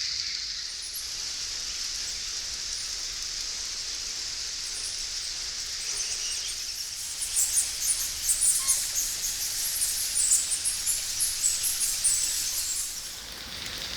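Tropical cave ambience: a steady high hiss, then from about seven seconds a dense flurry of rapid, very high-pitched animal chirps and clicks that stops abruptly near the end.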